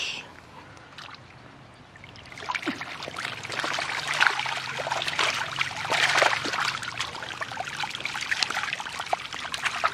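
Crowded koi thrashing and splashing in shallow water inside a harvest net as a hand reaches in among them. The splashing starts about two and a half seconds in and keeps going, busy and uneven.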